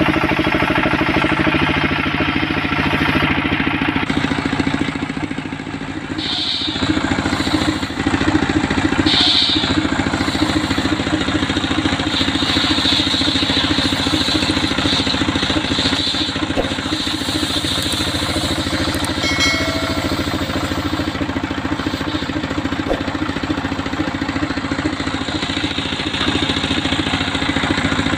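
Homemade engine-driven circular sawmill running steadily while its blade rips coconut-wood planks. The saw's high cutting noise rises over the engine at times as boards are fed through, strongest through the first half.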